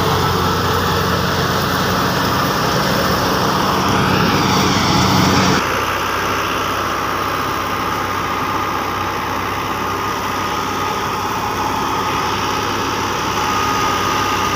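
Tractor engine running steadily under load, driving a wheat thresher through its PTO shaft as straw is fed into the machine. About five and a half seconds in the sound changes abruptly to a slightly quieter drone with a steady high whine.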